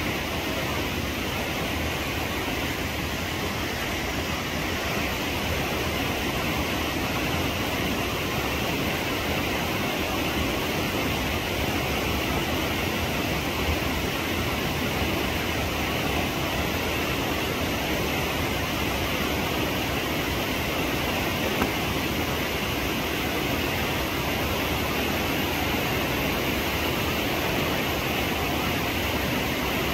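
Steady rush of a mountain stream over rocks, even and unbroken.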